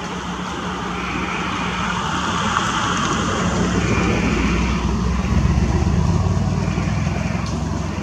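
A motor vehicle passing on a nearby road, its low rumble swelling to a peak about five to six seconds in and fading at the end. A short, high, steady tone repeats every two to three seconds over it.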